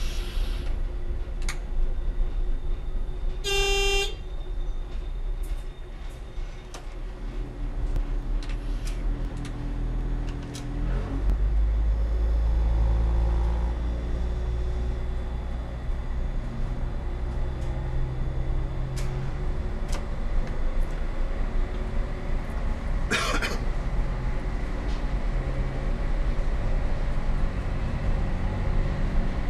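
Y-train diesel railcar under way, its engine running steadily with wheels clicking over the rails; the horn gives one short toot about four seconds in. About eleven seconds in the engine grows louder, and a short hissing burst comes near the end.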